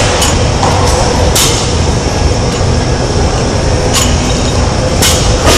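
Barbell with bumper plates being snatched and lowered, giving several sharp metallic clanks and clicks of plates and bar, over a steady loud rumble of background noise.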